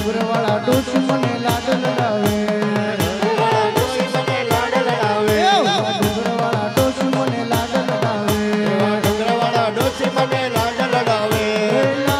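Live Indian devotional music: a voice singing over a harmonium's held chords and a double-headed barrel drum played in a steady rhythm, its low strokes falling in pitch several times a second.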